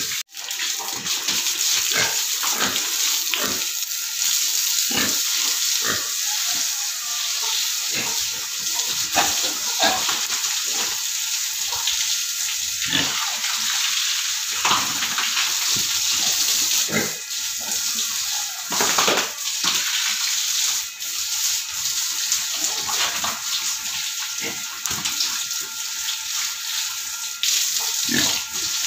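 Hose jet spraying water onto a concrete pig-pen floor and walls: a steady hiss and splatter, broken by frequent irregular splashes and knocks.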